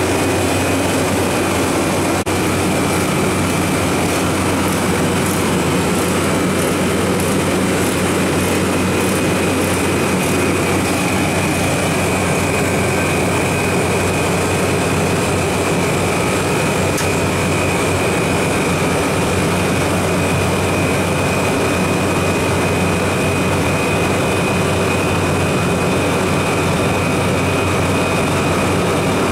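Refrigeration condensing unit running: the Copeland compressor's steady hum under the rush of the condenser fan, with a faint, steady high whine.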